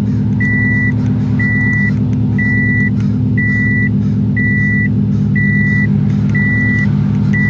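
Subaru WRX's turbocharged flat-four idling steadily at about 1,000 rpm, heard from inside the cabin. An electronic warning chime beeps at one high pitch about once a second, each beep about half a second long.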